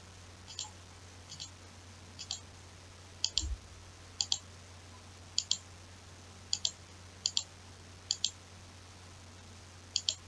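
Computer mouse clicking in quick double clicks about once a second as edges are selected one by one, over a faint steady low hum.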